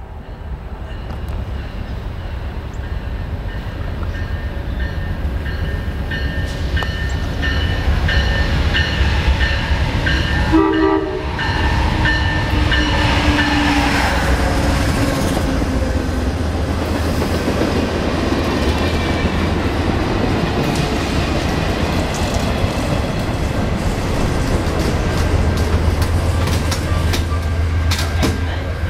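Amtrak GE P42DC diesel-electric locomotive approaching and passing, its engine rumble growing louder as it nears and its horn sounding about ten seconds in. The passenger cars then roll past with steady wheel clatter and clicks over the rail joints.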